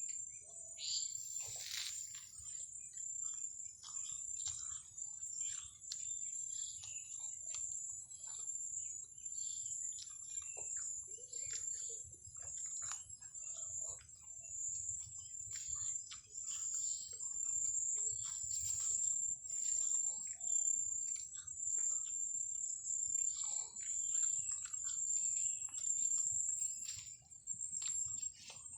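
A steady, high-pitched insect drone, with many short chirps and clicks scattered over it.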